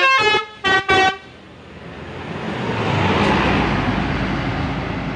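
Intercity bus telolet horn, a multi-tone horn playing a stepped melody that ends in two short blasts about a second in. It is followed by the passing rush of a large vehicle's engine and tyres, which swells to its loudest about three seconds in and then eases off.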